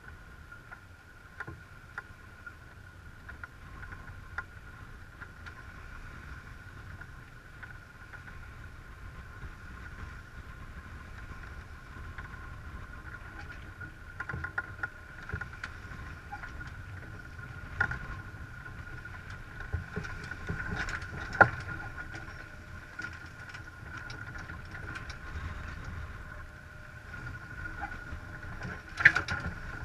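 Sailing yacht under way, water rushing and splashing along the hull in a steady wash, with a faint steady high tone underneath. Scattered clicks and knocks from deck gear, a few sharper ones in the second half.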